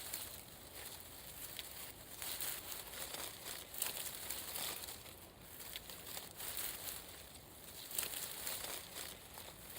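Leaves and stems of plants being handled and brushed, an irregular rustling and crinkling with small sharp crackles scattered throughout.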